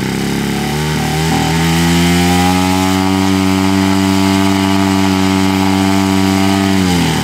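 Large-scale radio-controlled de Havilland Tiger Moth model's engine run up on the ground while held back by hand: it climbs to high revs about a second in, holds there steadily, then is throttled back down near the end, a pre-flight run-up check.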